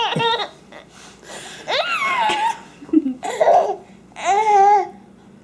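Baby laughing in about four short, high-pitched squealing bouts with quiet gaps between them, the pitch rising and falling within each.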